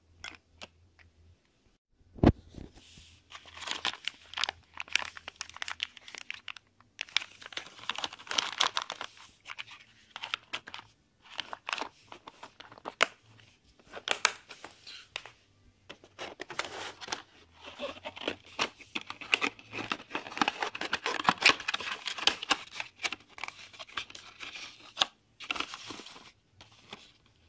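Plastic and cardboard packaging handled by hand: stop-start bursts of crinkling and rustling with clicks and knocks, and a sharp knock about two seconds in.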